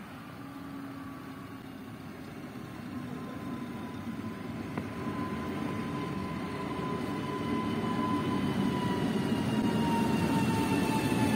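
Newag Impuls electric multiple unit pulling into the stop, its traction-motor whine slowly falling in pitch as it slows, and the rumble of its wheels on the rails steadily growing louder as it nears.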